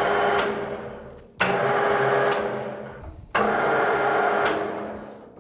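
Metal lathe's motor and gearbox started three times in quick succession, each start sudden and each run dying away over a second or two, with a sharp click in each run. The lathe is being test-run after its broken on/off switch was repaired by brazing.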